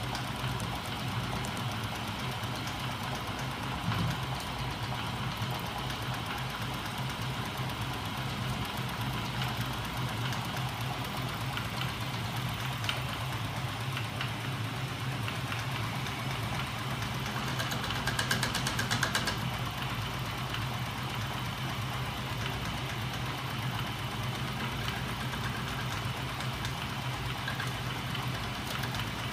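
Home-built magnet engine running, its small 12 V electric motor driving a rocking magnet arm and crankshaft: a steady hum with a fast, even mechanical rattle. A brief higher whir comes in about 18 seconds in.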